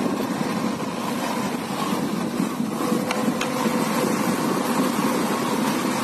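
Motorcycle engine running at a steady speed while riding along a dirt track.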